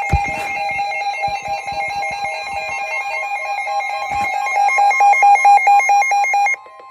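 Emergency alert tones: a loud, fast warbling pattern of alternating electronic pitches, joined about three seconds in by a steady single tone that carries on alone after the warble cuts off suddenly near the end.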